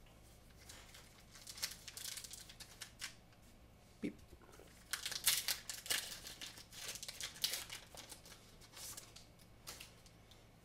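A Pokémon card booster pack being torn open and its wrapper crinkled, with the cards inside slid out and handled; faint, irregular rustling and crackling, busiest about halfway through.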